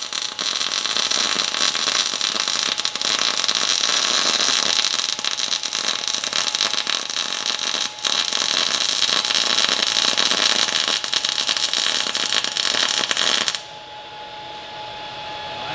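MIG welding arc from an ESAB Rebel EMP 235ic running .035 wire with 90/10 argon/CO2 near spray transfer, at about 29 volts and 260 amps: a loud, steady hiss with a little crackle from the short arc, breaking briefly about eight seconds in. The arc cuts off suddenly near the end, leaving a faint steady hum.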